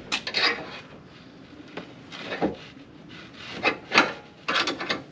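Irregular knocks and scrapes of hard objects being handled, in short clusters, the loudest knock about four seconds in.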